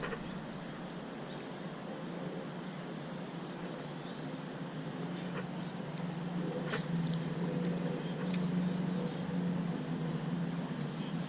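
Creekside ambience: a steady rush of flowing water with a low hum beneath it, a scatter of short, high bird chirps and a few faint clicks.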